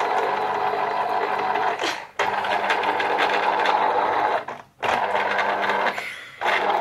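Electric citrus juicer running, its motor whirring steadily as an orange half is pressed onto the spinning reamer cone. The motor cuts out briefly twice, about two seconds in and again just before the fifth second.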